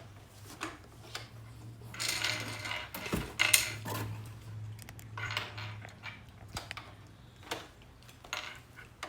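Batteries being fitted into a toy blaster's battery compartment: irregular small clinks, clicks and plastic handling noises, over a faint steady low hum.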